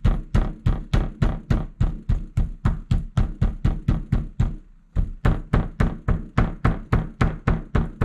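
Meat mallet pounding grouse tenderloins flat on a plastic cutting board: a steady run of dull knocks, about four a second, with a short break a little past halfway.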